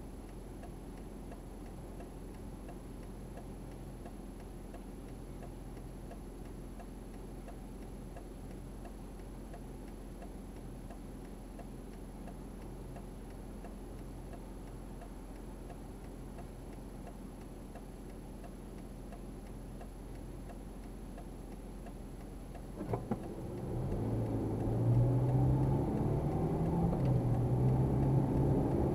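Car's turn indicator ticking steadily while the car waits with its engine idling. Near the end there is a sharp click, then the engine and road noise get louder as the car pulls away, the engine note rising and wavering as it accelerates.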